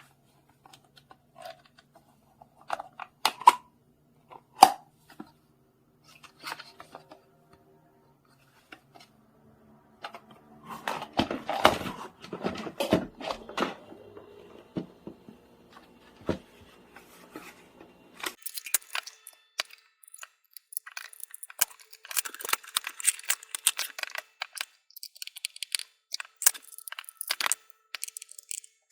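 Packaging being handled and opened: plastic and paper crinkling and tearing in two long spells, with scattered clicks and knocks of small plastic parts before them.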